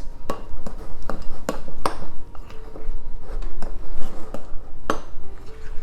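A spoon mixing cocoa powder into chocolate cake batter in a bowl, knocking and clinking against the bowl in irregular strokes.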